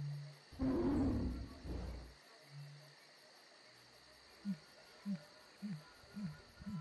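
Jungle-night sound effects: a steady high insect chirring throughout, a loud low animal roar about half a second in that lasts over a second, then five short low hoots about half a second apart near the end.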